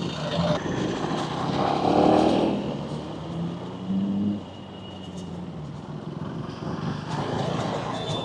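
Motorcycle engine and traffic noise while riding, louder with a rev about two seconds in, easing off at about four and a half seconds.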